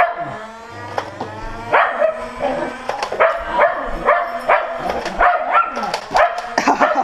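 A dog barking repeatedly, about two or three short barks a second, after a drawn-out wavering whine in the first second and a half.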